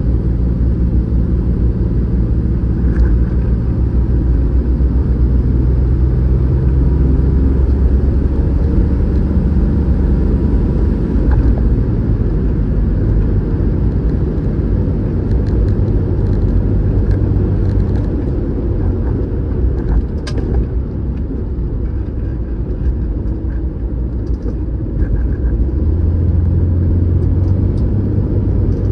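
Toyota Land Cruiser FJ62's 4.0-litre inline-six engine and tyres on the road, heard from inside the cabin while driving. There is a steady engine drone with road rumble, and the engine note rises and falls a few times with speed.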